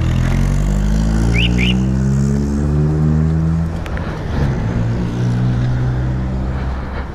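Italika DS 150 scooter's single-cylinder engine pulling away, its pitch rising over the first few seconds and then levelling off. It eases briefly about four seconds in, then runs steadily.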